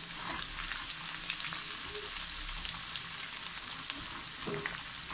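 Thinly sliced red onion deep-frying in sunflower oil, a steady hiss of sizzling with fine crackles throughout. This is the early stage of frying onions for a biryani's fried-onion garnish: the slices are still pale and giving off moisture, not yet browned.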